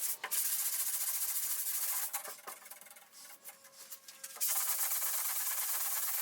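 Sanding body filler on a steel truck door: a steady scratchy hiss. It stops about two seconds in, with a few light knocks during the pause, and starts again a couple of seconds later.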